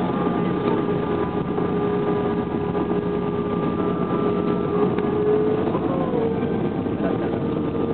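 Steady jet engine and airframe noise inside an Airbus A321 cabin, an even rush with a constant engine whine; one tone rises slightly about six seconds in.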